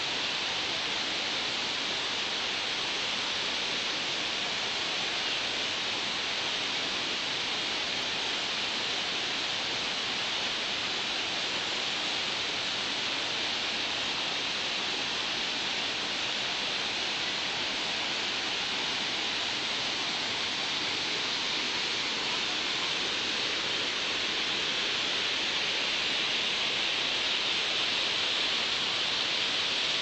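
A waterfall and the rocky mountain stream below it pouring and splashing, heard as one steady, even hiss of water that does not let up.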